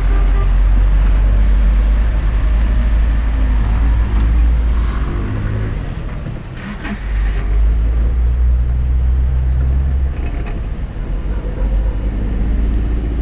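A car passing on a wet road beside a flooded river, over a steady low rumble and the rush of floodwater.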